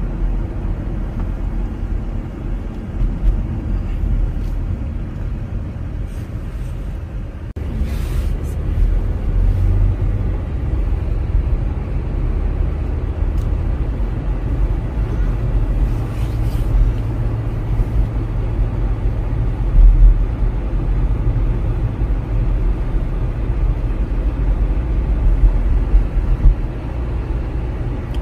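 Road noise inside a moving car at speed: a steady low rumble of tyres and engine. It shifts abruptly about seven and a half seconds in, and a single louder low thump comes about twenty seconds in.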